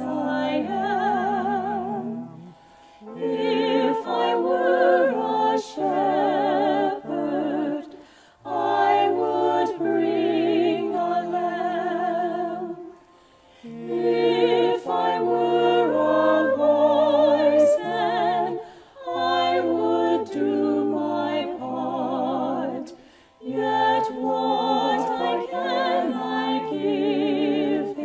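A small group of women's and a man's voices singing a song together in harmony, in phrases with short breaks between them.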